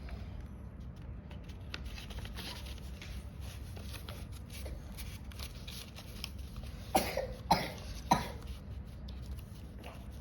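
A person coughing three times in quick succession, over faint rustling and handling noise.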